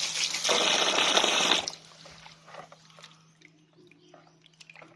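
Cold water pouring into a pot of food, stopping abruptly a little under two seconds in, followed by faint clinks and knocks.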